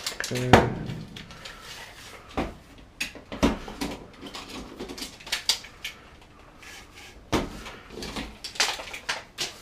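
Irregular light clicks and knocks from handling measuring and marking tools against a piece of drywall.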